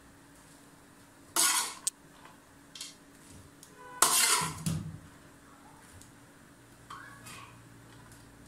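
A metal spoon scraping and knocking against a metal bowl as grated carrots are pushed off into a pot of milk: four short scrapes, the loudest about four seconds in.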